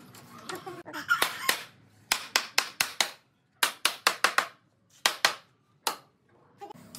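Hammer striking pallet wood: a quick run of about fifteen sharp blows in groups of several, with short pauses between the groups.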